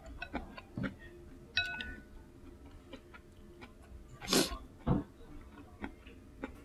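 Eating ramen with chopsticks and a spoon: small clicks and taps against the bowl as noodles are stirred and lifted, a short ringing clink about one and a half seconds in, and a loud slurp of noodles about four seconds in.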